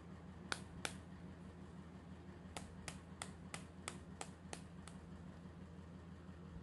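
Sharp clicks from a small pink plastic toy doctor's instrument worked by hand: two clicks, then a run of eight at about three a second. A faint steady low hum runs underneath.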